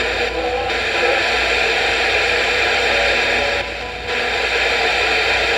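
Radio static: a steady hiss from a radio receiver tuned to a weak or empty frequency, briefly dropping in level twice.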